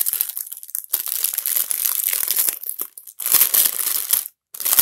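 Thin clear plastic bag crinkling and rustling in the hands as a power adapter inside it is turned and unwrapped, with a short break near the end.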